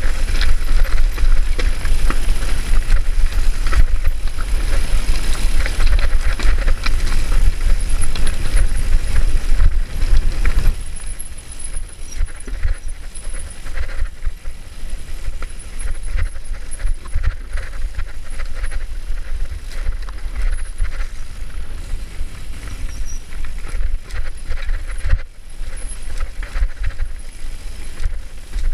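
Mountain bike ridden fast down a rough singletrail: wind buffeting the handlebar camera's microphone, tyres rolling over stones and roots, and the bike rattling and knocking over the bumps. Louder for the first ten seconds or so, then it drops suddenly and goes on more softly.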